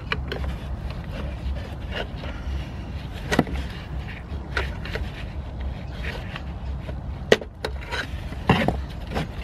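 Scattered clicks and scrapes as a tool prises at the retaining clip between the heater and the diesel fuel filter, with the sharpest click about seven seconds in, over a steady low hum.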